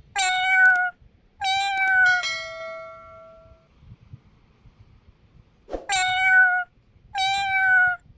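Young ginger-and-white domestic cat meowing loudly: four long, steady-pitched meows in two pairs, the second trailing off slowly.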